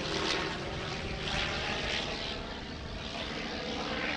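Sopwith Pup biplane in flight, its authentic rotary engine running steadily with a propeller buzz that swells briefly about a second in.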